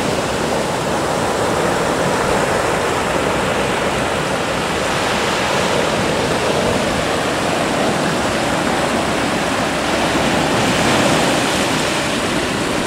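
Sea waves breaking and foaming in the shallows: a steady rush of surf that swells a little about eleven seconds in.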